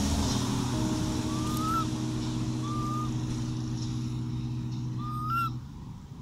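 A vehicle engine idling with a steady low hum that stops suddenly near the end. Three short rising chirps sound over it.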